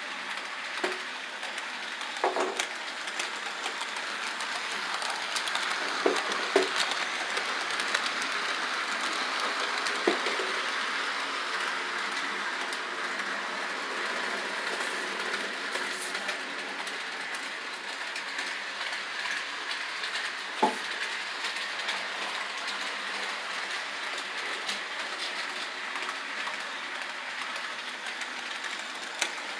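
HO scale model train running on layout track out of view: a steady rolling whir that swells and then eases, with a few sharp clicks.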